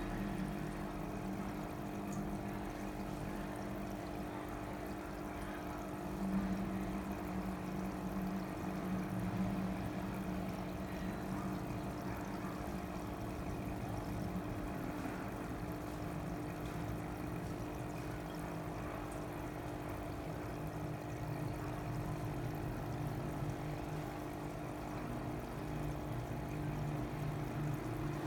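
Water pouring and trickling steadily over a constant low hum, the sound of the fish tanks' water pumps and filters running.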